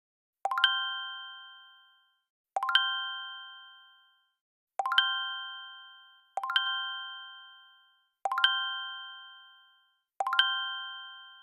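A chime sounding six times, roughly every two seconds. Each strike rings with a few clear tones that fade out over about a second.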